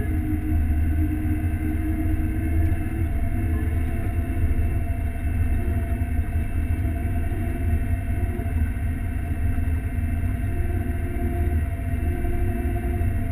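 John Deere S670 combine running, heard from inside its cab: a steady low rumble with a faint steady whine on top.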